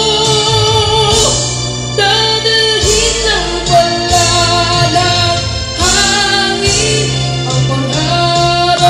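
A young boy singing a melody in long held notes into a microphone, amplified, over instrumental accompaniment.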